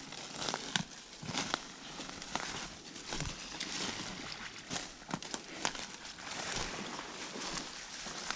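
Footsteps crunching and rustling through dry leaves and twigs, with irregular sharp crackles.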